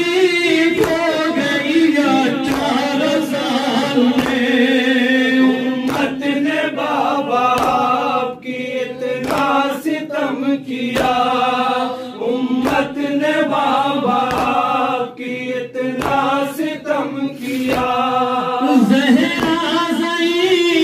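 Men chanting an Urdu noha, a Shia lament, as a group with a lead voice on a microphone. Under it a steady beat of hands striking chests (matam) lands about once a second.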